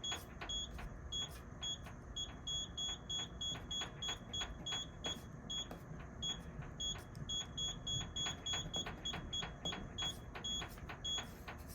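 Control panel of a Lamber F99EKDPS undercounter dishwasher beeping at each button press: a long, uneven series of short, high beeps, at times several a second, with faint clicks from the keys.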